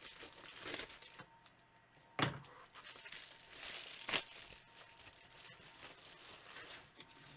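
Packaging being cut open with scissors and torn away, with crinkling and rustling and two sharp clicks about two seconds apart.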